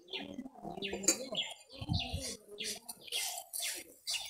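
Birds chirping in quick succession, short high chirps several times a second over lower calls.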